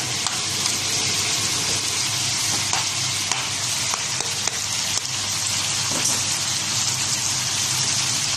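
Chicken pieces deep-frying in hot oil in a wok, a steady loud sizzle with scattered small pops and crackles, over a low steady hum.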